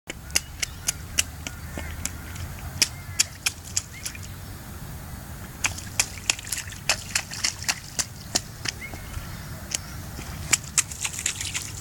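A toddler stomping and splashing in puddles: runs of sharp slapping splashes, a few a second, with short pauses between the runs, over a low steady rumble.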